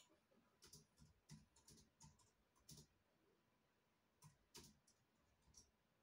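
Near silence broken by faint, irregular clicks, about a dozen scattered through the first five seconds or so.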